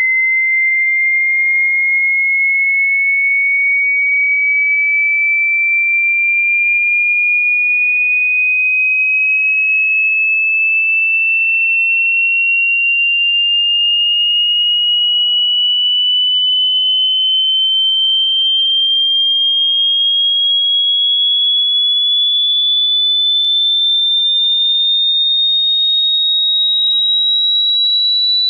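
Electronic pure sine test tone of a hearing test, a high whistle-like note climbing slowly and evenly, rising about one octave at constant loudness.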